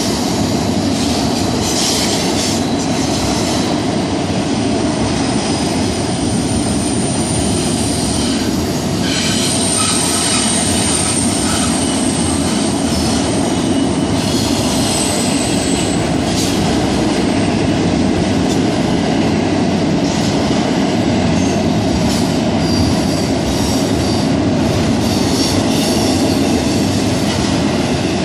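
Double-stack intermodal freight cars rolling past with a loud, steady rumble of wheels on rail. Through the first half, thin high wheel squeals come and go as the wheels take the curve.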